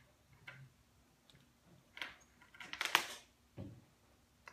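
Small clicks and light rattles from hands fitting parts at the rear window of a car. A cluster of sharp clicks comes about two to three seconds in, and a duller knock follows just after.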